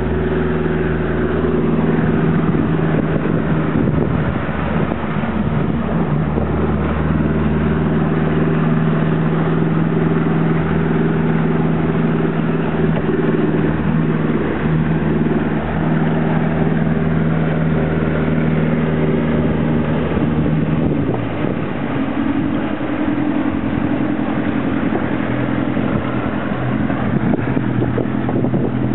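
Motorboat engine running steadily underway over a rush of water, its note changing about two-thirds of the way through as the throttle setting shifts.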